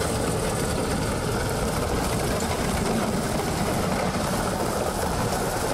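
Motor grader's engine running under load as its blade scrapes and spreads crushed stone across a gravel road base, a steady dense mechanical noise.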